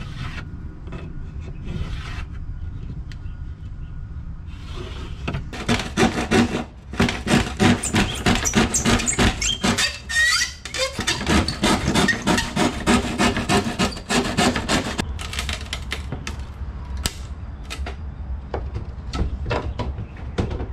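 Hand saw cutting through a plywood panel: a fast, steady run of back-and-forth strokes that starts about five seconds in and lasts about ten seconds, followed by a few scattered knocks as the wood is handled.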